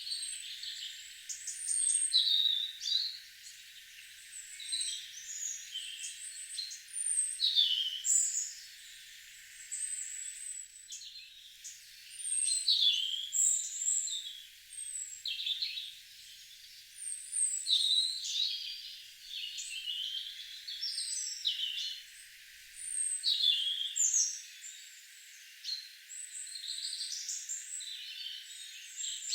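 Several songbirds singing and calling over one another in quick, high-pitched phrases that come in waves every few seconds.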